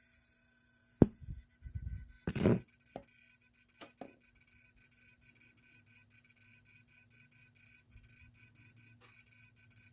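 LG Chem RESU10H home battery giving off a high-pitched, rapid and irregular crackling tick, like a Geiger counter, from the back of the unit while the inverter is neither charging nor discharging. The owner does not know whether this is normal. A sharp knock comes about a second in and a louder rustling thump comes a second and a half later.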